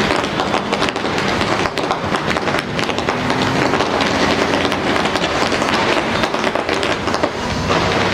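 Fireworks display in a dense barrage: a rapid, continuous stream of crackling pops and bangs with no pause.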